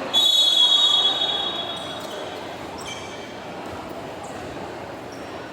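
Referee's whistle: one shrill blast lasting about a second and a half, then a brief high tone about three seconds in, over the steady hubbub of a gymnasium.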